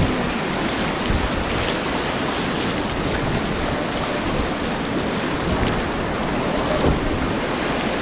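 Whitewater rapids rushing and churning around a kayak, a steady dense wash of water noise, with wind buffeting the microphone.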